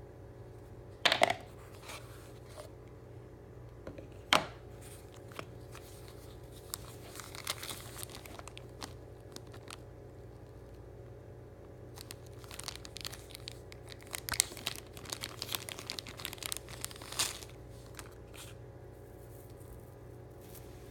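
Packaging being torn and crinkled open by hand: two sharp rips, one about a second in and another a few seconds later, then a long run of crackling and rustling that dies away near the end.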